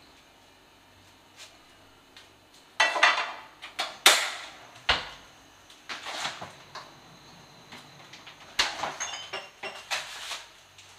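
Kitchen clatter of cookware: a frying pan taken up and set down on a gas stove's metal grate, with sharp knocks and rattles of pans and utensils about three seconds in, the loudest about four seconds in. A second run of knocks and rattles follows near the end.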